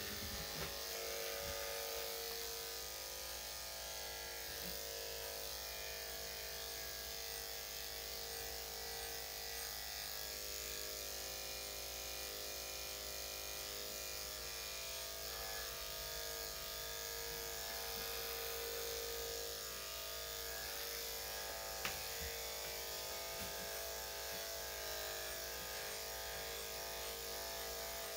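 Electric dog-grooming clippers running steadily as they trim the coat.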